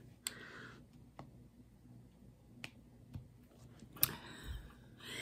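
Faint scattered clicks and soft rustling from diamond-painting work: small plastic drills and a plastic drill tray being handled, with a sharper click about four seconds in.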